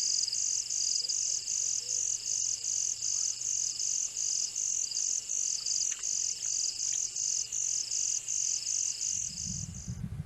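Night insects chirping in a fast, even rhythm of about four pulses a second over a steady high trill. The chirping cuts off suddenly near the end as a low rumble comes in.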